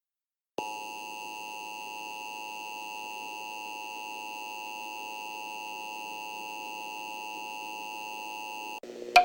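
Emergency Alert System attention signal: a steady dual-tone alert tone that starts about half a second in, holds for about eight seconds, then cuts off abruptly. A faint low hum and a sharp click follow near the end.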